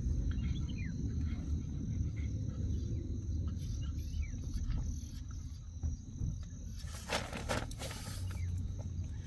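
Outdoor ambience of crickets chirping steadily as two thin high tones, over a low rumble that sets in suddenly at the start and is the loudest sound, with a burst of rustling about seven seconds in.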